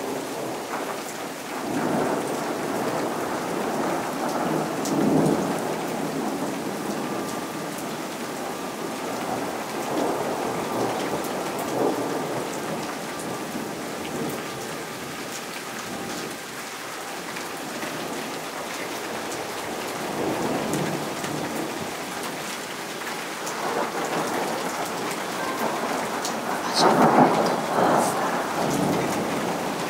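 Rain falling steadily during a thunderstorm, with thunder rumbling again and again over it; the loudest peal comes near the end.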